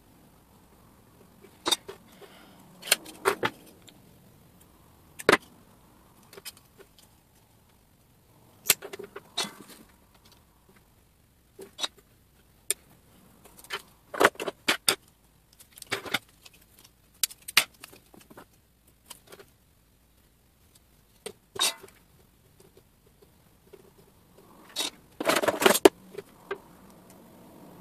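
Small metal hand tools and parts handled on a wooden workbench: irregular sharp clicks, taps and clatters, with a denser run of knocks near the end.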